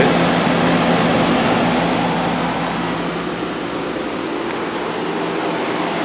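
Home-built heat pump water heater running: a steady low hum from its air-conditioner compressor under the even rush of air from its radiator fan, the hiss softening a little about two seconds in.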